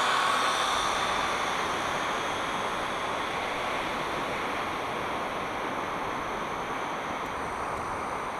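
Syma X8C quadcopter's motors and propellers whining, fading over the first couple of seconds, leaving a steady hiss of surf and wind.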